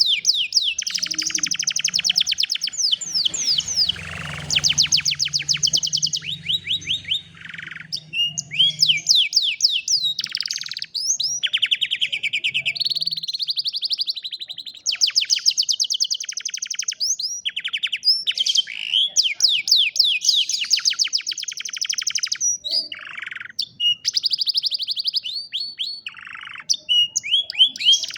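Domestic canary singing: long, fast trills and rolls of rapidly repeated high notes, phrase after phrase with short breaks between them. A faint low hum sits under the song for a few seconds near the start.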